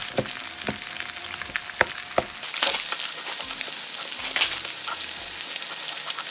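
Large bone-in beef ribs sizzling on an electric grill pan, with sharp clicks of metal utensils against the meat and pan in the first couple of seconds. The sizzle jumps louder a little over two seconds in and holds steady.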